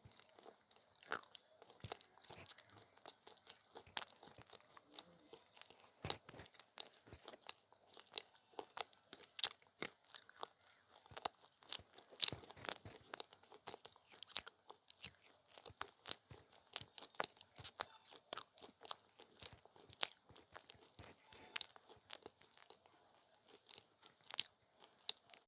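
Someone biting and chewing hard, brittle pieces of clay: a dense, irregular run of sharp cracks and crunches, with a short lull near the end.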